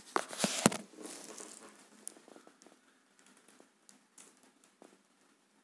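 A short burst of rustling with a few sharp clicks in the first second, then faint, scattered clicks.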